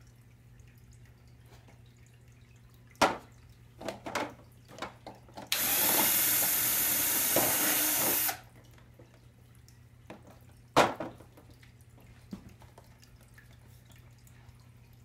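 Cordless drill running steadily for about three seconds, boring a hole through a thin plastic food container. Before and after it come sharp clicks and knocks from the plastic container being handled, over a low steady hum.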